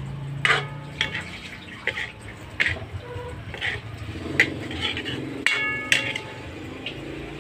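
Spatula scraping and knocking against a wok while stir-frying saucy pancit canton noodles, in irregular strokes; one knock about three-quarters through rings briefly.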